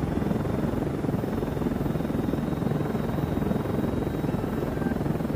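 Helicopter in flight: steady rotor and turbine noise with a fast, even rotor chop.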